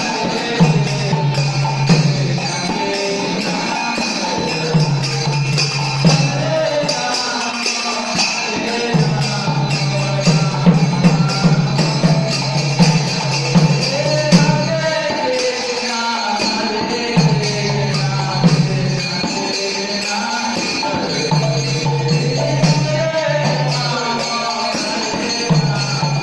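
Devotional kirtan: a man sings a chant into a microphone over the steady jingling of small brass hand cymbals (karatalas), with hand clapping, in phrases of a few seconds.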